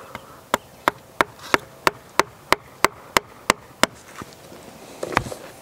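Hammer driving a metal staple into a tree trunk: eleven quick, evenly spaced strikes, about three a second, followed by one duller knock about five seconds in.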